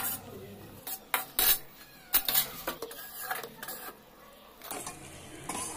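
A metal spatula clinking and scraping against a metal kadhai in irregular strokes while stirring and scooping gram flour (besan) being fried in oil.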